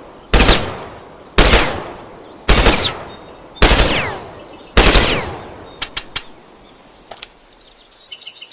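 M16 assault rifle firing five short bursts, about one a second, each with a long echoing tail. Then come a few light, sharp clicks, with a small rattle of them near the end.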